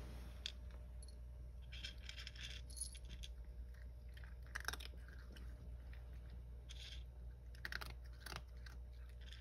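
A cat eating dry kibble from a dish, crunching it in irregular clusters of small crisp crunches and clicks.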